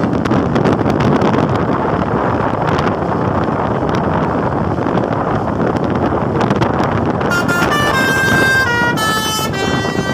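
A loud, steady rushing noise for about seven seconds. Then a bus's telolet horn plays a quick melody of separate notes, stepping up and down in pitch.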